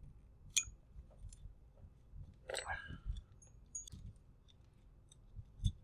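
Faint, scattered clicks and clinks of small plastic and metal RC car parts being handled as shock absorbers are fitted to a model car chassis, with a denser clatter a little after two and a half seconds.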